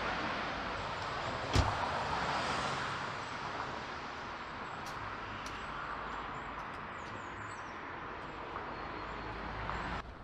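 A car door shuts with a single sharp thump about one and a half seconds in, over steady outdoor background noise.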